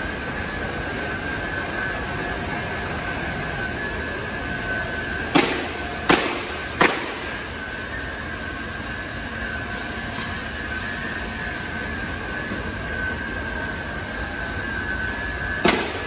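Glass tempering furnace line running: a steady mechanical noise with a constant high whine. It is broken by three sharp clanks a little after five seconds in and another just before the end.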